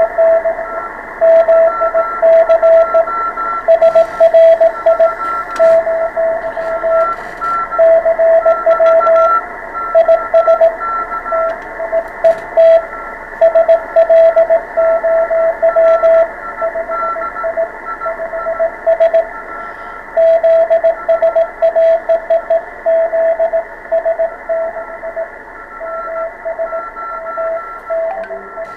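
Morse code (CW) from an amateur radio transceiver: a single tone keyed on and off in quick dots and dashes over steady receiver hiss, with a fainter higher tone keying along with it and faint clicks over the top.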